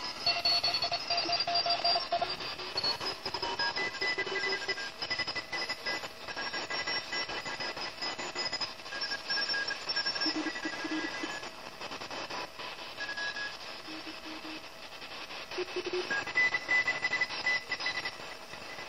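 Shortwave radio receiver tuned near 3.515 MHz, in the Morse (CW) end of the 80-metre amateur band: keyed Morse code tones at several different pitches over steady static hiss, coming and going as the dial is moved.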